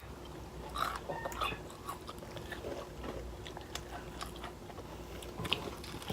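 Close-up chewing and biting of spicy sauce-coated chicken wings: irregular wet smacks, crunches and mouth clicks.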